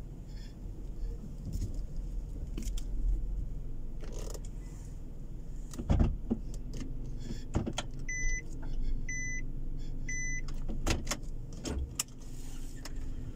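Clicks and knocks of handling inside a parked car's cabin, then an electronic beep three times about a second apart, with a low steady hum from about halfway through.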